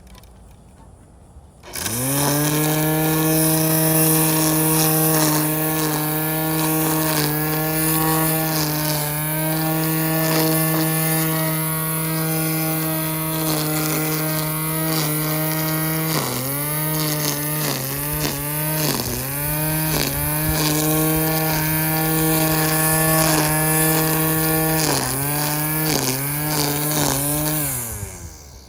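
Hyper Tough electric string trimmer running: the motor spins up to a steady whine about two seconds in as the line cuts grass, its speed dips and picks back up several times in the second half, and it winds down and stops near the end.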